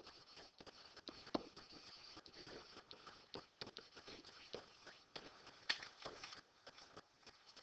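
Faint, scattered taps and scrapes of a pen writing on an interactive whiteboard, a handful of small clicks over otherwise near-silent room tone.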